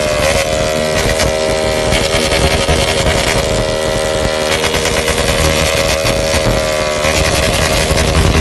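A 160 cc single-cylinder motorcycle engine held at full revs against its rev limiter. The ignition cuts in and out rapidly, giving a steady high note that is chopped many times a second, and the note dips slightly about seven seconds in.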